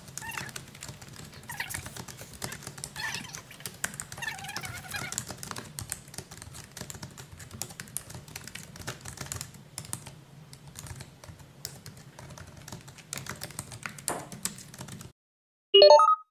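Rapid typing on a laptop keyboard: a dense run of quick key clicks over a low steady hum. It cuts off suddenly about fifteen seconds in, and a short electronic chirp follows near the end.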